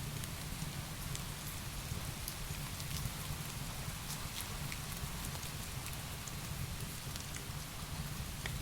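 Heavy rain falling steadily with a low rumble, mixed with sparse small crackles and snaps of a wood fire.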